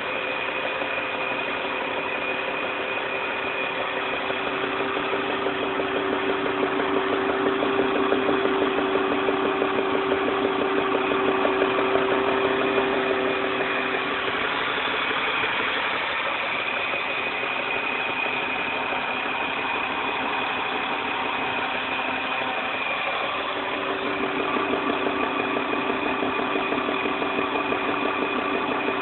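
1999 BMW 323i's straight-six engine running steadily, with the rapid, even knocking that its owner is showing off as a problem. Its tone shifts for several seconds in the middle.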